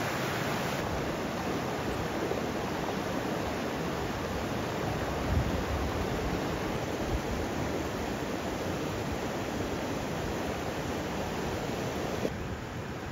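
Mountain stream rushing over rocks: a steady rush of water, with a brief low thump about five seconds in, and a little quieter near the end.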